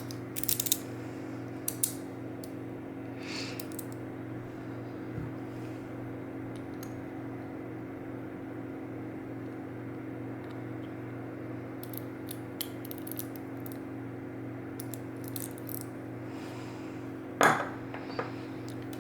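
Small metal lock pins and springs clicking and tinkling as they are handled and set down, a few light clicks scattered through and the loudest near the end, over a steady background hum.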